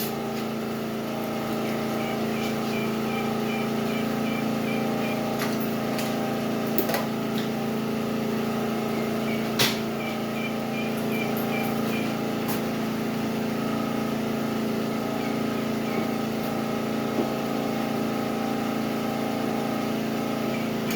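Portable generator engine running steadily, a constant hum, with a few sharp knocks of items being handled.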